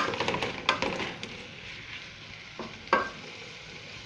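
Chicken, potato and onion filling sizzling in a stainless steel pan while a wooden spoon stirs and scrapes it. The spoon clatters most in the first second, with a few sharper knocks on the pan later.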